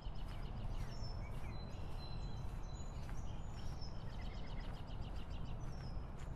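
Outdoor ambience: a steady low rumble with birds chirping in short, thin whistles.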